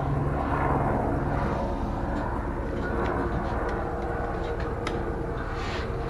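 Steady low rumble of background machinery or traffic noise, with a few light clicks and taps of handling over it.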